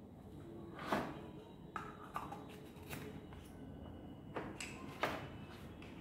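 Scattered light clicks and knocks of items from a drill kit being handled, about six in all, the loudest about a second in and near the end.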